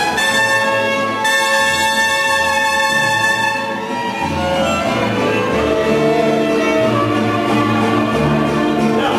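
Mariachi band playing an instrumental passage, violins leading over a bass line; the music changes about four seconds in.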